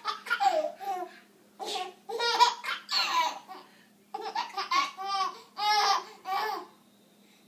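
A small child laughing hard in three bouts of high-pitched, pulsing giggles.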